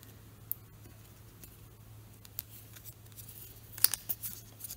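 Light clicks and taps of thin wooden kit pieces handled between the fingers, scattered at first, then a quick run of sharper clicks near the end, over a faint steady low hum.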